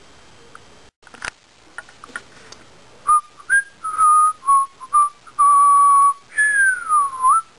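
A person whistling a wandering tune, starting about three seconds in: a run of short notes and held notes, then a long slide down in pitch near the end. A soft click comes about a second in.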